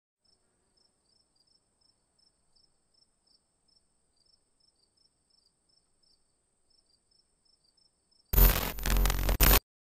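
Faint cricket chirping, a steady high trill with short chirps repeating two or three times a second. About eight seconds in, a sudden loud burst of sound across the whole range runs for just over a second and cuts off abruptly.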